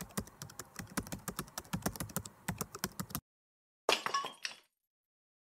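Rapid, irregular keyboard-typing clicks, a sound effect laid under the letters of a title being typed out. They stop abruptly about three seconds in. Shortly after comes one brief, sharp hit lasting under a second as the cracked-text logo appears.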